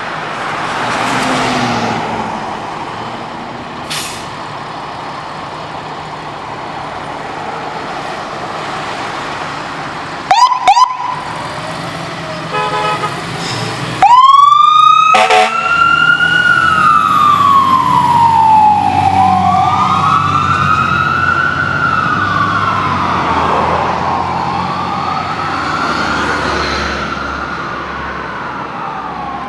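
A fire truck's engine and traffic run steadily, then two short, loud air-horn honks come about ten seconds in. About fourteen seconds in the truck's electric siren starts abruptly and wails in long rising and falling sweeps, overlapping, through the rest.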